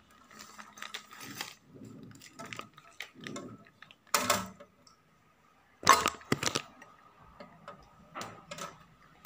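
Tabletop handling clatter as plastic kit parts and a steel jug are picked up and set down: a sharp knock about four seconds in and a quick cluster of clinks and knocks around six seconds, among quieter rustling.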